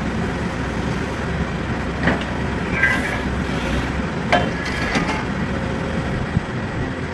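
Excavator diesel engine running steadily, with a few sharp metallic knocks about two, four and a half and five seconds in and a brief squeak near the middle.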